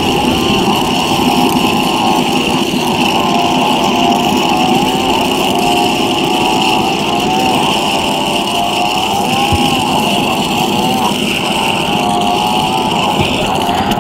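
Dubbed-in imitation car engine sound made from a recording of a cheap fan: a steady drone whose pitch wavers up and down.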